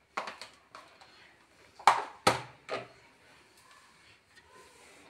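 A few light knocks and taps of kitchen utensils, the loudest about two seconds in.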